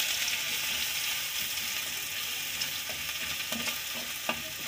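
Garlic paste and panch phoron sizzling in hot mustard oil in a metal kadhai as a wooden spatula stirs them, with a few light knocks of the spatula against the pan near the end.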